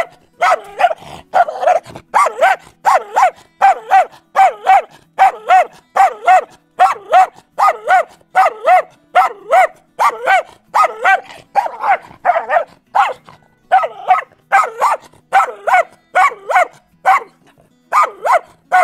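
A dog barking aggressively in a fast, steady run, roughly two loud barks a second, with a couple of brief pauses.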